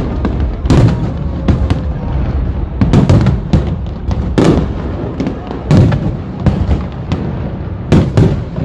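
New Year fireworks going off: a rapid, irregular run of loud bangs and crackles, several a second, over a constant low rumble.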